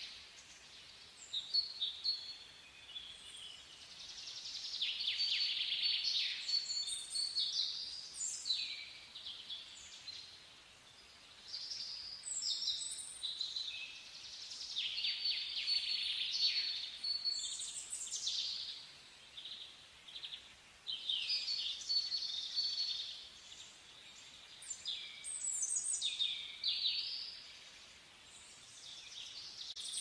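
Songbirds singing and chirping outdoors in repeated phrases of quick trills, sweeping notes and short high whistles, with brief quieter gaps between phrases.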